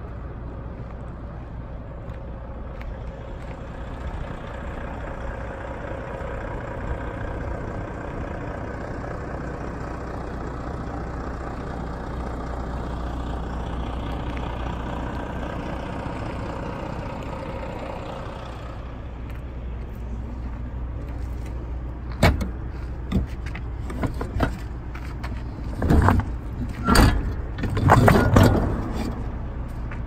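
A steady low engine drone runs throughout. From about two-thirds of the way through come a string of sharp metal clanks and knocks, loudest near the end, as the rear door lock handles and locking bars of the Krone refrigerated semitrailer are worked and the door is swung open.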